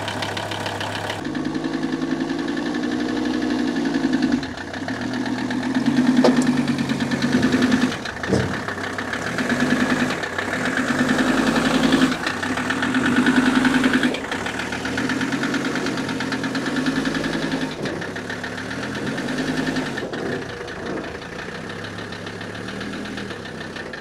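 A 1981 Mercedes 300TD's OM617 five-cylinder diesel running and being revved up and down in repeated swells as the car drives up a trailer's ramps, then settling near the end. It carries a diesel knock that the owner is not sure is the normal injector nailing.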